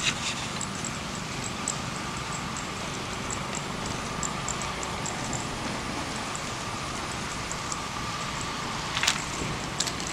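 Steady outdoor background noise, a low rumbling hum like distant road traffic, with a faint steady high tone and scattered faint high ticks. There is a sharp knock about nine seconds in.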